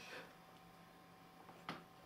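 Near silence: room tone with a faint steady hum, and one short click near the end.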